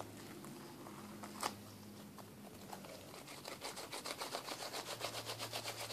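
Hand-kneaded slime clicking and squelching softly as it is pressed and worked between the palms, with a single click early and a quick run of small clicks, about six a second, from about halfway in.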